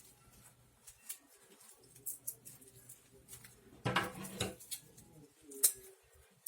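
Quiet, scattered light clicks and rustles of dried palm strips being handled at a table, with a brief low hum about four seconds in.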